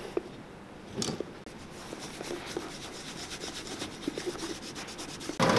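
Cloth rubbed briskly back and forth over a leather shoe upper, working in cream polish, making a fast, even, scratchy rhythm of strokes. Near the end a polishing/buffing wheel motor switches on abruptly and runs loud and steady.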